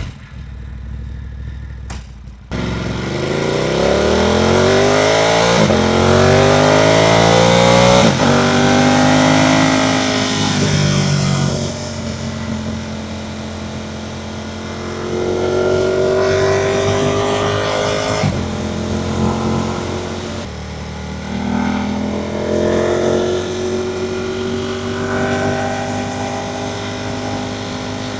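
Ducati Monster 1200S V-twin engine pulling away about two and a half seconds in, revving up hard through two gears, then easing off. For the rest it cruises, with a couple of shorter pulls on the throttle, over a rush of wind.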